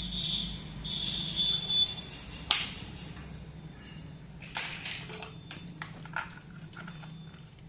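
Hard plastic toy-track playset parts being handled and fitted together: one sharp click about two and a half seconds in, then a scatter of smaller clicks and rattles. A steady high whine runs through the first two seconds, with a faint low hum underneath.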